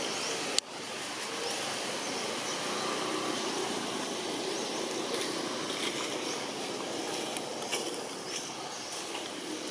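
Steady outdoor background noise with faint, short high chirps scattered through it, and one sharp click about half a second in.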